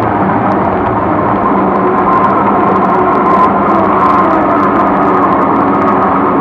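Loud, steady electronic drone: a dense hissing wash with a few faint held tones running through it.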